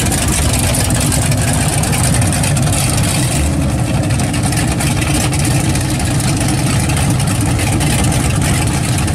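Pontiac GTO V8 engine running at low speed through its dual exhaust as the car rolls past and pulls slowly away, a steady low exhaust note with no hard revving.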